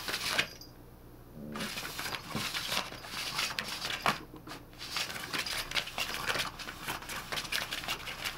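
Cat pawing and batting at a noisy cat toy: a quick run of small clicks and rustles that stops for about a second near the start and briefly again around the middle.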